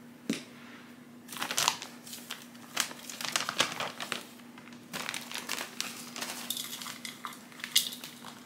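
Plastic potting-mix bag crinkling and crackling in irregular bursts as its ripped top is pulled open and handled. Near the end the bag is tipped and the soil mix starts to pour out into a plastic bowl.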